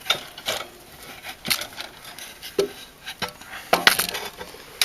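Irregular knocks and clinks of handled metal parts, about six separate strikes with a short clatter near the end.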